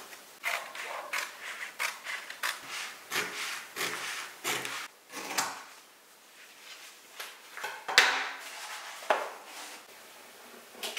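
Adhesive vinyl film and paper backing rustling and scraping against a wooden table and ruler as the film is marked and handled, in a quick run of short strokes. After a quieter pause come two sharp clicks near the end.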